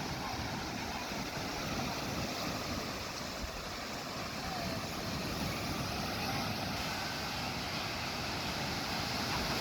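Steady wash of sea surf and wind.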